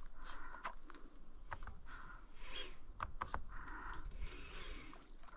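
Baitcasting reel being cranked in short spurts, with scattered sharp clicks between them.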